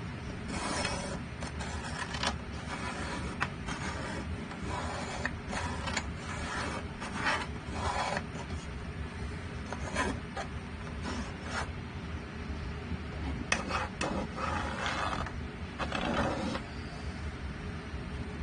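Short, irregular strokes of a hand tool scraping and rubbing along the edge of a poplar wood frame, with a lull about twelve seconds in. A steady low hum runs beneath.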